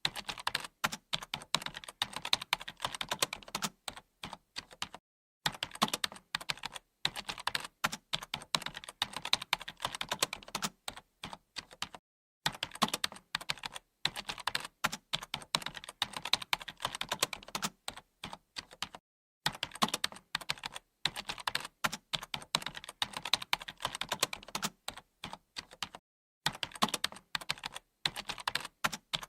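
Computer keyboard being typed on fast and continuously, with dense runs of key clicks broken by short pauses of under a second about every seven seconds.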